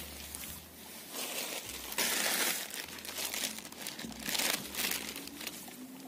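Crinkling rustle of a bag being handled and picked up, in irregular bursts, loudest about two seconds in.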